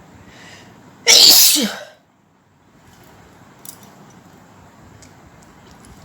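A woman sneezes once. A short breath in is followed about a second in by a single loud sneeze, its voiced tail falling in pitch.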